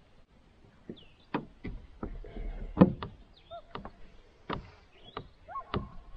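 Irregular hollow knocks and clunks against a canoe hull, about seven in all, the loudest a little under three seconds in. A few short high chirps come between them.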